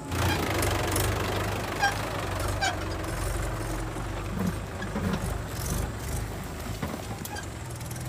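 Mahindra tractor's diesel engine running steadily as it pulls a trailer loaded with mud away.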